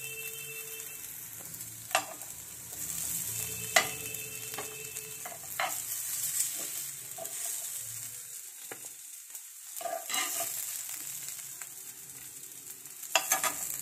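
Bitter gourd and potato stir-fry sizzling in a nonstick pan as a steel spoon scrapes it up and scoops it out, with sharp clicks of the spoon against the pan and plate several times.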